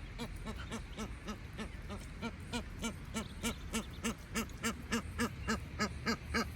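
A bird giving a long run of rapid, evenly spaced honking calls, about three a second, growing louder as it goes.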